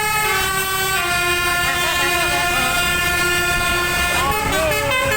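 Bus telolet musical air horn with twelve trumpets playing long held chords, stepping down in pitch about a second in and then holding steady; near the end shorter tones that rise and fall join in.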